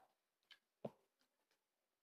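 Near silence, broken by two short faint clicks, one about half a second in and a slightly louder one just under a second in.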